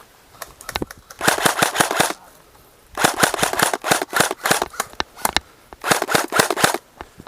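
Airsoft guns firing full-auto: three rapid bursts of about a second each, with a few single shots before and between them.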